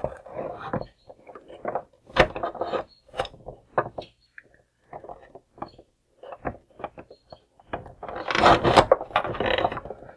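Plastic handling noise from the 1988 G.I. Joe Cobra BUGG toy: needle-nose pliers pinching the tire's plastic retaining clips while the plastic tire is wiggled on its axle, giving scattered clicks and rubbing. A denser, louder stretch of clicking and rubbing comes about eight seconds in.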